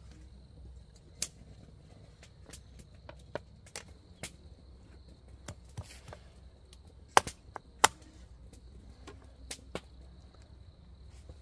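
Scattered sharp knocks and clicks at irregular spacing, two louder ones close together about seven seconds in, over a faint steady high drone of insects.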